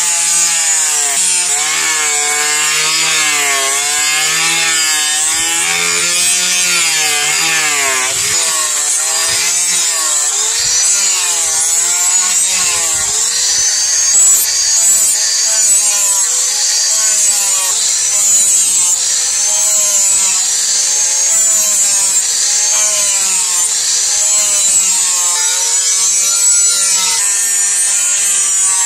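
Angle grinder with a sanding disc grinding a steel knife blade: a continuous high motor whine that keeps wavering up and down in pitch as the disc bites and eases, over a loud grinding hiss of abrasive on steel.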